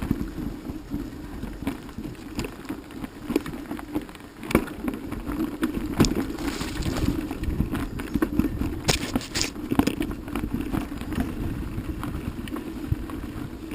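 Vehicle engine running at a steady low pitch while riding, with frequent knocks and rattles.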